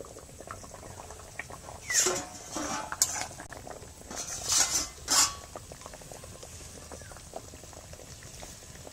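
Potatoes boiling in water in an iron wok, a continuous fine bubbling. Several metal clanks and scrapes from about two to five seconds in, as the steel plate lid and a metal spatula are handled against the wok and steel dishes.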